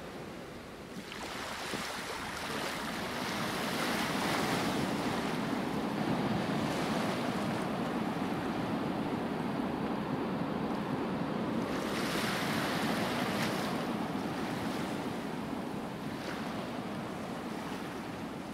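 Surf washing ashore: a steady rushing wash of waves that builds, holds and eases off.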